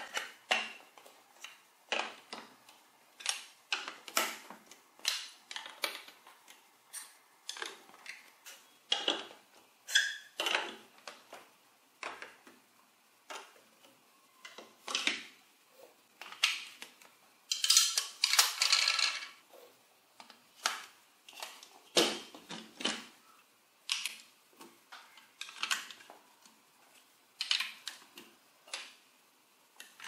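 Large plastic building blocks clicking and knocking as they are pressed together and set down: irregular sharp clicks every second or so, with a longer clatter of blocks just past halfway.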